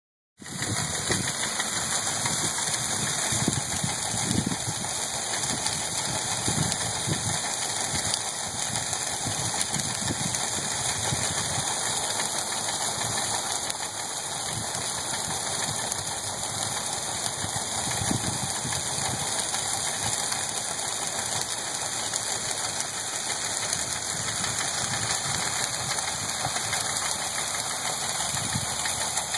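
Feed auger system running: a steady mechanical whir and hiss with irregular low knocking and rattling underneath.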